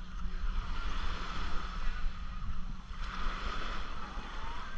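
Steady beach ambience: wind rumbling on the microphone over the wash of small waves on the shore.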